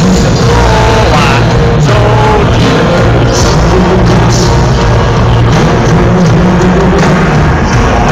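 Loud rock music with a singing voice, steady and unbroken.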